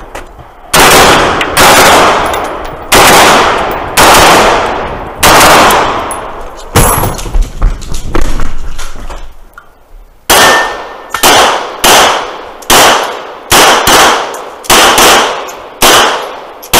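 Gunfire: a string of rifle shots about a second apart, a pause of about two seconds, then a quicker string of handgun shots, each shot trailing off in a long echo.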